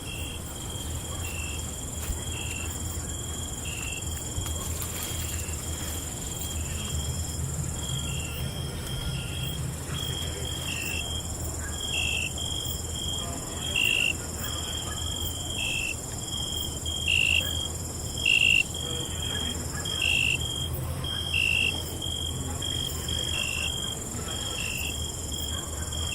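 Crickets chirping at night: one keeps up a steady high trill while another chirps in short, regular pulses about once a second, a few of them louder in the second half. A low steady rumble lies underneath.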